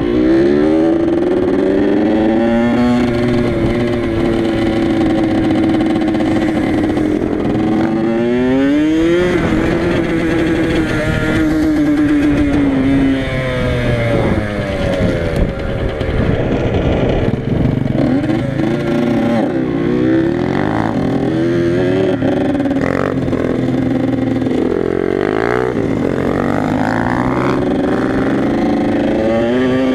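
Yamaha YZ85's two-stroke single-cylinder engine running under way, loud. Its pitch holds steady for long stretches and climbs and drops as the throttle is worked, with a sharp climb about eight seconds in and several quick rises and falls near the end.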